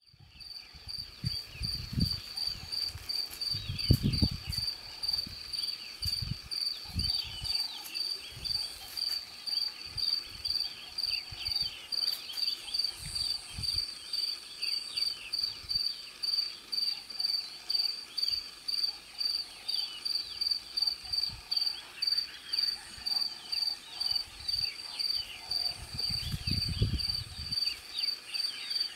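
Crickets chirping in a steady rhythm, a high pulse about twice a second, with fainter scattered chirps behind them and a few low thumps.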